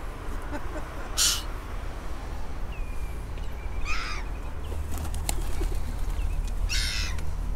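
Black-headed gulls giving short, harsh calls, three times: about a second in, around four seconds and near the end. A steady low rumble of wind on the microphone runs beneath.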